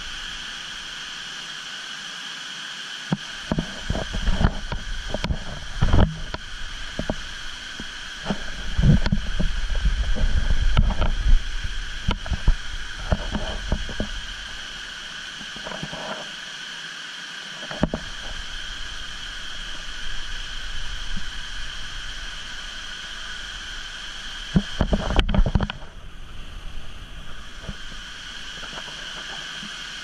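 Wind buffeting the microphone in irregular low rumbling gusts, heaviest from a few seconds in until about halfway and again briefly near the end, over a steady high-pitched drone.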